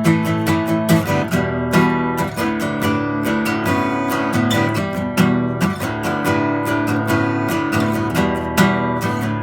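Acoustic guitar strummed, chords ringing in a steady rhythm of quick strokes.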